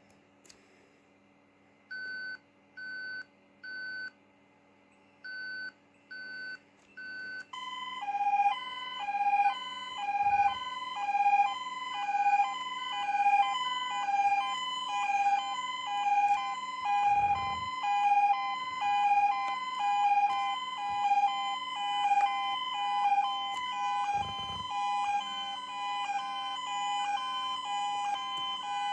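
Fire alarm being tested: first short beeps in two groups of three with a pause between, then a louder sounder alternating between two tones, high and low, about every three-quarters of a second, over a steady low hum.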